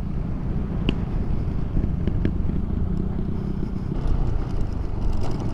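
Motorcycle running steadily on the road, its engine hum mixed with low wind rumble on the microphone.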